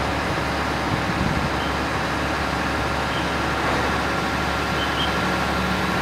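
Mobile crane's diesel engine running steadily as it hoists a steel roof truss: a continuous low rumble under an even hiss.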